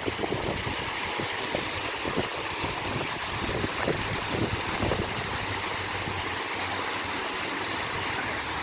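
Small waterfall rushing steadily.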